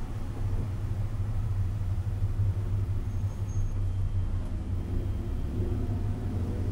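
BMW E90 330i's straight-six engine running at low revs, heard from inside the cabin as the car rolls slowly off the throttle, a steady low drone with road noise.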